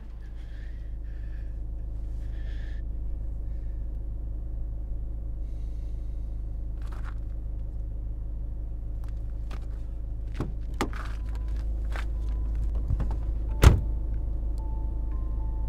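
A car door being handled, with clicks and knocks as it opens and the man climbs in. It shuts with one heavy thump near the end, the loudest sound. A steady low rumble runs underneath.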